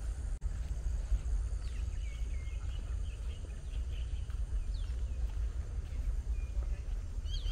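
Park ambience on a walk: small birds chirping in short twittering phrases, mostly in the first half, over a steady low rumble and footsteps on a path.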